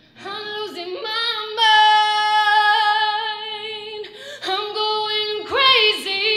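A woman singing a cappella into a microphone, coming in after a brief pause, holding one long note for about two seconds, then moving through shorter sliding phrases.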